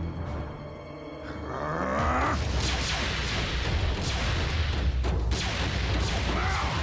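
Cartoon action sound effects over a dramatic score: a rising whoosh about two seconds in, then a dense, rumbling run of booms and blasts.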